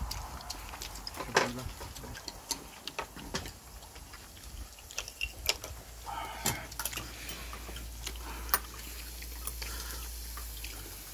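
Scattered small clicks and smacks of a person eating raw oysters up close to the phone. A low steady rumble comes in about six seconds in.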